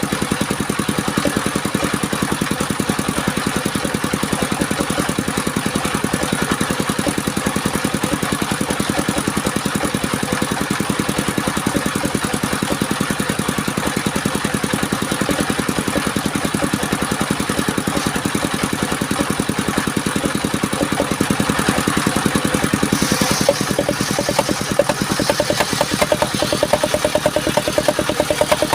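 Engine of a portable circular sawmill running steadily with an even, rapid firing pulse, at much the same level throughout.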